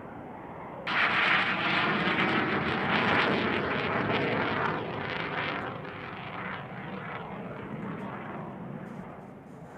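Jet roar of a US Marine Corps F/A-18 Hornet's twin General Electric F404 turbofans as it climbs out after takeoff. The roar jumps up sharply about a second in, stays loud and rough for a few seconds, then fades gradually from about five seconds as the jet flies away.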